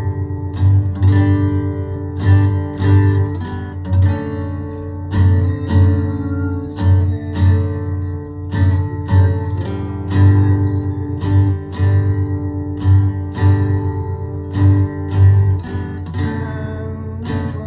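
Acoustic guitar strummed in a steady rhythm, about two strokes a second, chords ringing between the strokes.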